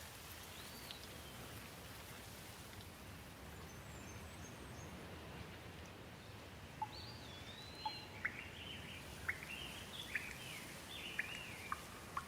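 Soft steady rain ambience with birds chirping: a few short, sweeping calls from about halfway in, repeating toward the end.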